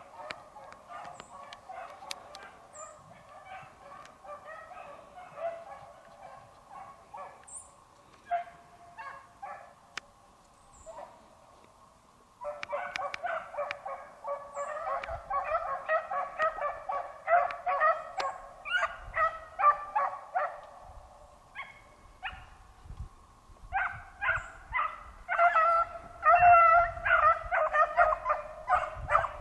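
A pack of beagles baying as they trail a rabbit's scent, many voices overlapping. The calls get louder about 12 seconds in and again near the end.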